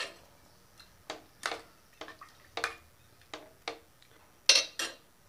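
Metal spoon clinking against the rim and sides of an aluminium pressure cooker pan as the rice and water are stirred: about ten short, sharp clicks at uneven intervals, the loudest two near the end.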